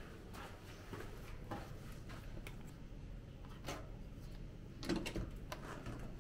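Footsteps along a carpeted corridor, then an electronic keycard door lock being opened: the card is held to the reader and the latch and lever handle click and clack, the loudest knocks about five seconds in.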